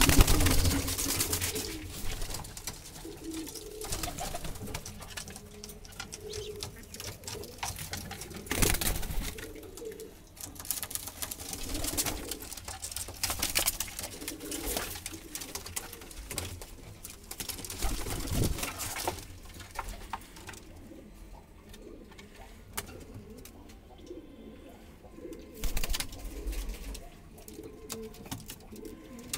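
Domestic pigeons cooing in a loft, with bursts of scuffling and knocking noise; the loudest burst comes right at the start.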